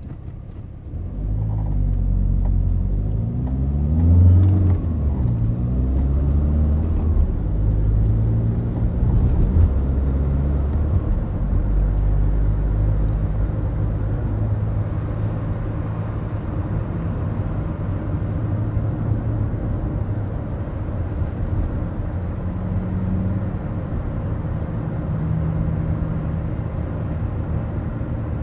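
Ford Focus diesel car heard from inside the cabin while driving: the engine note rises and falls in pitch a few times in the first several seconds, then settles into a steady low drone with road noise.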